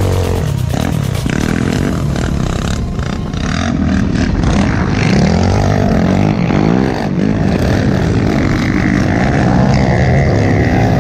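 Several sport quad (ATV) engines running and revving, their pitch rising and falling. The swells in pitch are clearest about four to seven seconds in.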